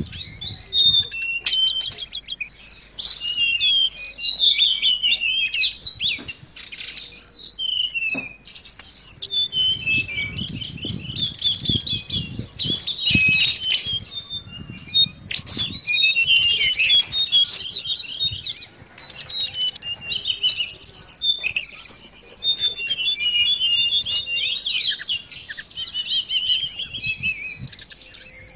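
Tledekan laut blue flycatcher singing a near-continuous, fast and varied twittering song of high chirps and trills, with brief low thumps and rustling partway through.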